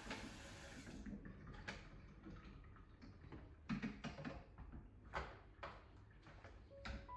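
Kitchen tap running into a stainless steel sink, shut off about a second in; then a string of knocks and clatters as a plastic dish rack is handled and set down on the sink.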